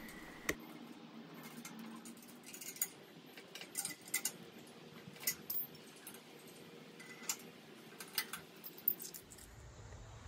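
Light metallic clinks and taps of bolts and a wrench being handled as a steel tow bar is bolted together, irregular sharp clicks a second or so apart.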